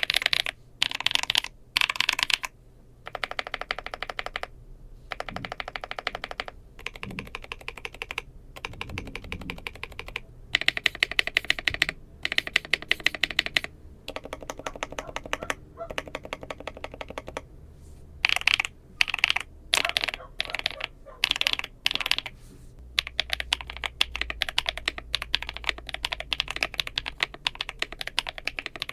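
Furycube E68 mechanical keyboard being typed on quickly, its switches lubed and its stabilizers tuned: runs of rapid keystrokes broken by short pauses.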